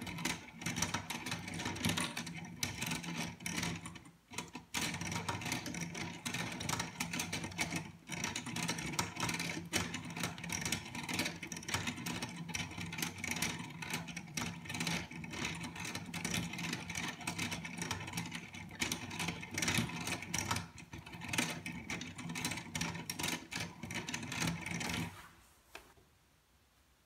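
LEGO automaton's plastic gears and axles running, a steady clicking, whirring clatter, with short breaks about 4 and 8 seconds in, stopping about 25 seconds in.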